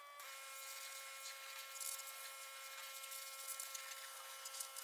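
Pressure washer running with a steady whine and the hiss of water spray; about a quarter second in the spray hiss grows louder and the whine's pitch shifts slightly as the flow picks up.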